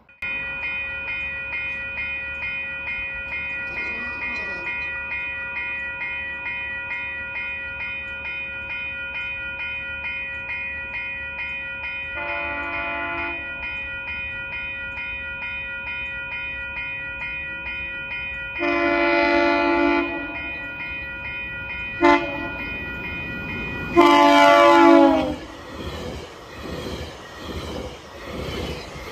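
Level-crossing warning bells ringing steadily as a GO Transit commuter train approaches, sounding its horn in the grade-crossing pattern: long, long, short, then a final long blast that drops in pitch as it reaches the crossing. The train then rolls through the crossing with wheel and car noise.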